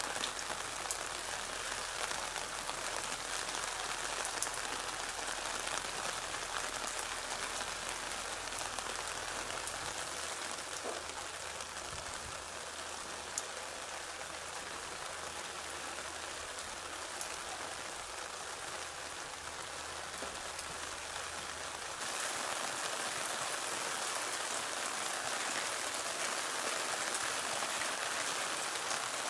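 Steady rain falling and pattering on surfaces, with a few louder single drips, growing a little louder about two-thirds of the way through.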